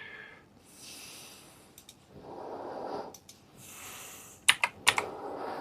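A person breathing in and out close to the microphone, several slow breaths, with a few sharp clicks and taps, most of them in a quick run near the end.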